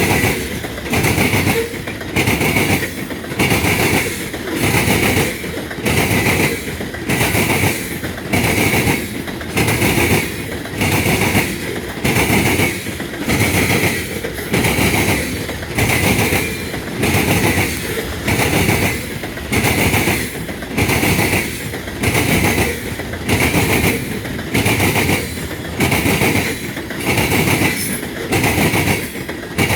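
Loaded coal train's cars rolling past, their wheels clattering over the rail joints in a steady, even rhythm of about one burst a second.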